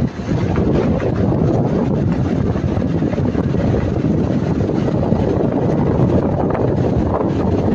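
Lada Niva Travel driving on a rough dirt road: steady engine and road noise with many small knocks from the tyres and suspension over the bumps. No brake-pad rattle stands out; the owner says the pads no longer rattle since he filed down their retaining clip.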